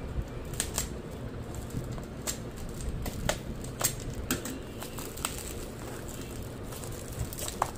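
Plastic mailer bag crinkling and crackling as it is slit with a utility knife and torn open by hand: irregular sharp crackles and clicks over a steady low background noise.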